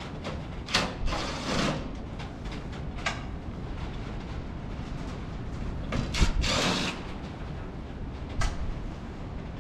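Hand tools and metal parts clanking and scraping as parts are worked loose on a vintage tractor: a few sharp clanks and two longer rasping scrapes, about a second in and about six seconds in, over a steady low rumble of wind.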